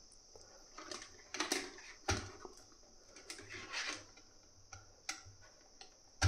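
Handling noise from plastic PTFE tubes: rustling and rubbing with scattered sharp clicks as the tubes are pushed into the AMS Lite's feeder fittings. The loudest clicks come about two seconds in and at the very end, over a steady faint high hiss.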